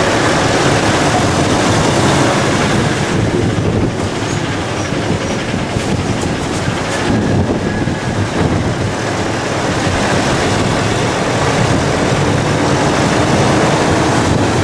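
Engine and road noise of a moving vehicle, heard from on board: a loud, steady rumble with hiss above it.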